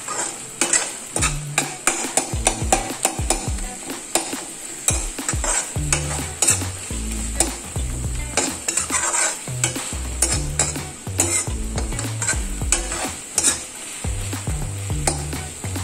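Perforated metal spoon stirring and scraping a tomato and cashew masala around a metal kadai, with many quick clicks and scrapes of metal on metal. Under it runs a steady sizzle of the masala frying in oil over medium flame.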